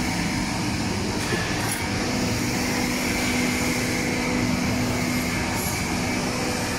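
Small continuous frying machine running on test, with its burners firing and its oil pumps and mesh-belt conveyor motor working: a steady rushing machine noise with a steady low hum under it.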